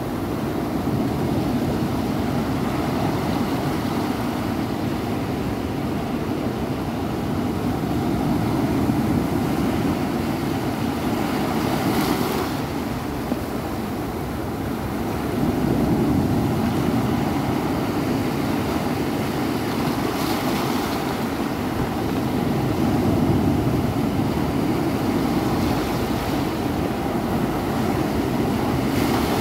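Ocean surf breaking at the shoreline and washing up over the sand: a continuous rushing that swells and eases as each set of waves comes in.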